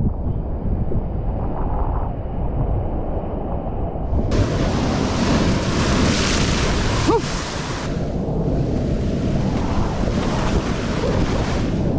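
Surf breaking and washing over a rocky shoreline, with strong wind buffeting the microphone. About four seconds in, a wave crashes and sprays across the rocks, a loud hiss lasting some four seconds before it drains back.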